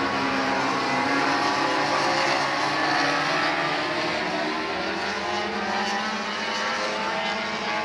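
Several racing motorcycles running at high revs on the circuit, their engine notes overlapping and rising and falling in pitch as they pass and change gear.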